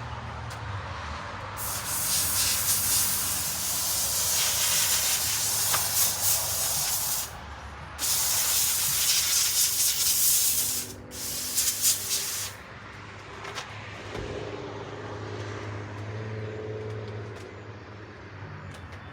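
Small handheld steam cleaner jetting steam in hissing blasts: two long blasts of several seconds each, then a few short spurts, before it goes quiet.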